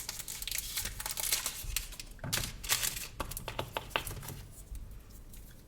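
Chocolate wrappers crinkling and rustling as individual chocolates are unwrapped by hand, a quick run of small crackles and clicks that thins out late on.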